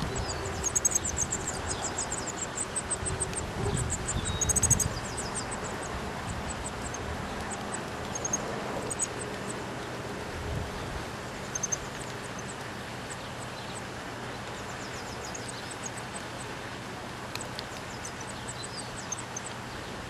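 Nestling songbirds begging with very high, rapid chittering calls, thickest in the first couple of seconds and again about four and a half seconds in, then only scattered chirps. Wind rumbles on the microphone during the first five seconds.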